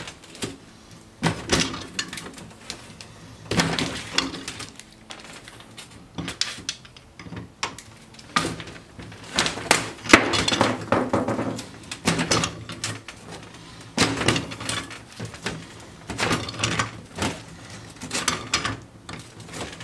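Large slip-joint pliers clanking, clicking and scraping on the steel of a forklift power steering cylinder as they grip, turn and are reset on its stiff, fine-threaded end, which is being unscrewed a bit at a time. The noises come in irregular clusters of sharp metal knocks.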